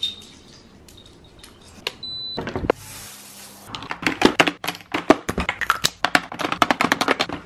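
A quick run of clicks and taps from small objects being picked up and handled, such as makeup items and an acrylic drawer organiser, starting about halfway through. A single short beep sounds about two seconds in.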